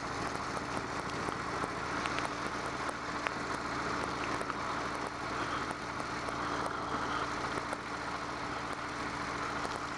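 Harley-Davidson Low Rider S's Twin Cam 110 V-twin running at a steady cruise, with a steady even rush of wind and road noise over it.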